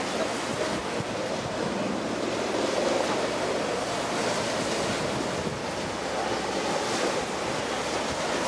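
Steady rush of wind and waves on open sea water, with wind buffeting the microphone.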